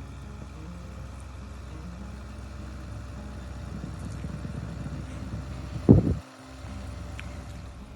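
A vehicle's steady low running rumble, with one loud thump about six seconds in.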